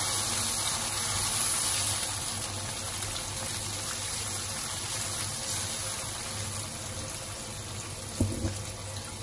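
Thin Thai sauce of tamarind water, palm sugar and fish sauce sizzling and simmering in a hot wok, stirred with a silicone spatula: a steady hiss that eases slightly toward the end.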